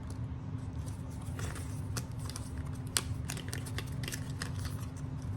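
Hands handling the EarPods' plastic and paper packaging: scattered small clicks and crinkles, with one sharper click about three seconds in.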